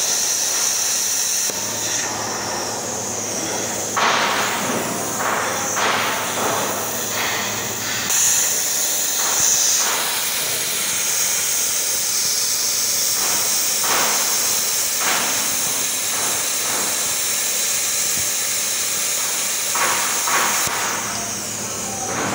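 Handheld plasma cutter cutting through steel plate: a steady hiss from the arc and air jet, with irregular crackling as the cut goes through the metal.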